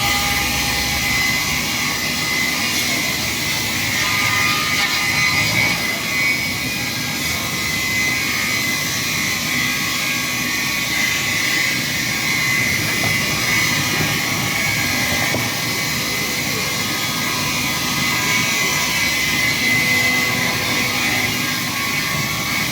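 Multiple band saw wood cutting machine running steadily, a continuous machine noise with a steady high whine.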